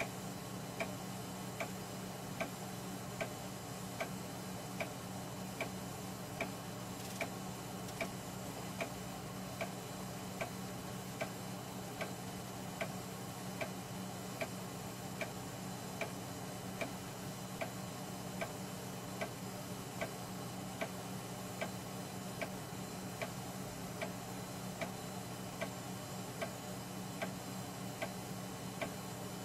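3.5-inch high-density floppy drive formatting a disk: a sharp click about every 0.8 seconds as the head steps from one track to the next. Under the clicks runs a steady low hum.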